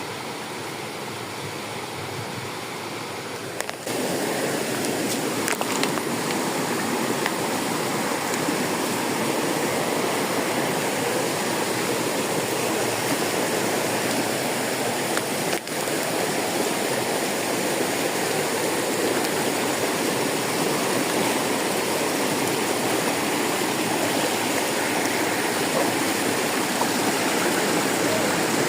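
Steady rush of flowing water from a stream or waterfall, louder from about four seconds in.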